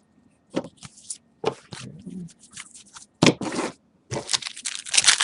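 Trading cards being handled and scraped against each other, then a card pack wrapper crinkling and tearing as it is opened from about four seconds in.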